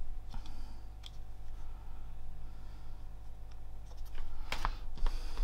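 A few light clicks and taps of small parts being handled, the loudest cluster about four and a half seconds in, over a steady low hum.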